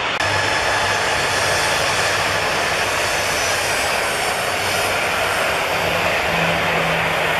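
Airliner engines running steadily as turboprop and jet aircraft taxi close by, a dense engine noise over a low steady hum that grows a little stronger near the end.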